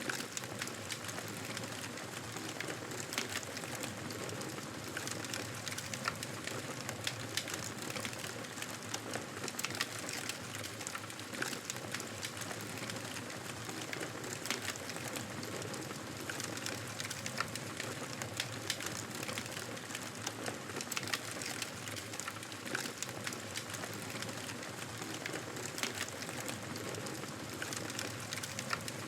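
Wood fire burning in a fireplace, crackling and popping irregularly over a steady hiss.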